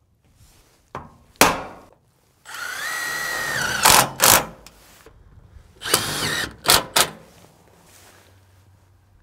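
Cordless drill-driver driving screws into steel corner trim on a metal building: a sharp knock about a second and a half in, then two runs of a steady whining motor, about a second each, each ending in a couple of sharp clacks.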